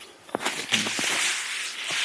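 Conifer branches brushing and rustling against clothing as someone pushes through dense spruce, after a few crunching footsteps on frozen ground. The rustling sets in under a second in and runs on as a steady scratchy hiss.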